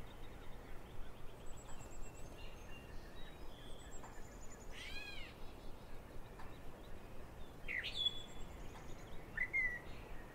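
Wild birds calling now and then: short chirps and whistled calls, one arching up and down about five seconds in, over a steady background hiss.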